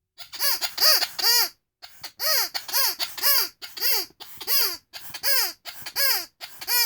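Rubber squeaky toy squeezed over and over, about two squeaks a second, each a breathy squeal that rises and falls in pitch. Three quick squeaks, a short pause, then a steady run.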